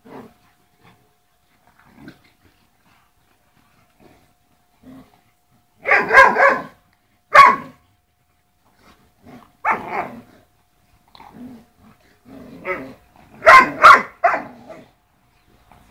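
Šarplaninac and shar-pei dogs barking and growling as they play-fight. It is mostly quiet for the first few seconds, then loud barks come in bunches about six seconds in and again around ten seconds, with a quick flurry near the end.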